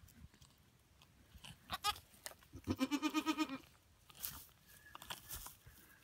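Goat bleating: a brief call about two seconds in, then one longer quavering bleat. Rustling of hay follows near the end.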